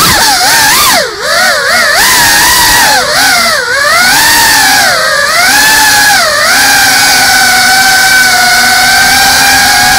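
FPV quadcopter's motors and propellers whining, heard from the camera mounted on the drone itself. The pitch swings up and down quickly with the throttle for the first six seconds or so, then holds nearly steady.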